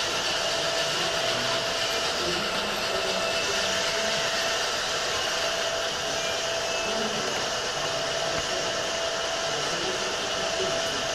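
Gauge 1 model trains running on the layout: a steady rushing noise with a faint steady hum.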